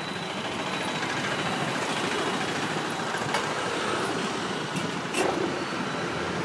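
Steady rushing noise of road traffic passing close by, with a couple of brief sharp clicks about three and five seconds in.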